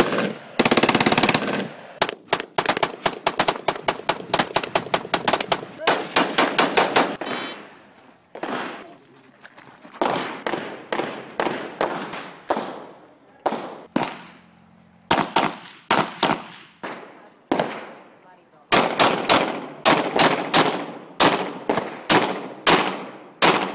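Gunfire from firearms: a short dense burst of automatic fire at the start, then fast strings of shots, slower single shots spaced about a second apart through the middle, and rapid strings again near the end.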